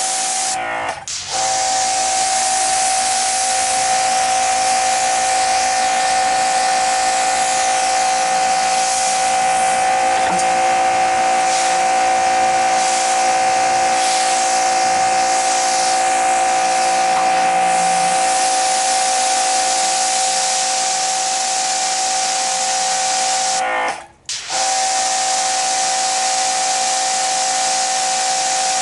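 Electric pressure washer running: a steady high whine from its electric motor and pump over the hiss of the water jet. It cuts out for a moment and restarts twice, once about a second in and once near the end, as the trigger is let go and the machine's automatic stop and start kicks in.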